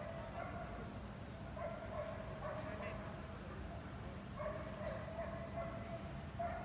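Belgian Malinois barking in repeated runs of calls with short pauses between them.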